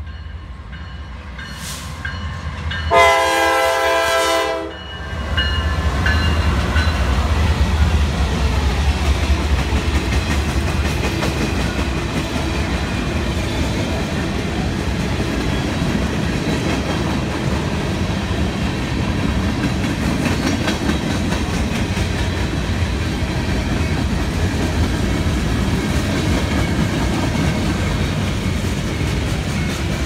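Norfolk Southern GE Dash 9 diesel locomotives approaching and sounding the air horn in one blast of about a second and a half, a few seconds in. The engines then pass with a heavy low rumble, followed by a long mixed freight train rolling steadily by with wheels clicking over the rail joints.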